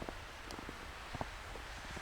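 Footsteps in snow, a few soft irregular steps a second, over steady wind noise on the microphone.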